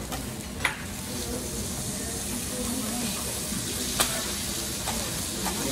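Thick wagyu steaks sizzling on a teppanyaki griddle, a steady hiss, with a couple of sharp clicks of a metal utensil against the griddle, the loudest about four seconds in.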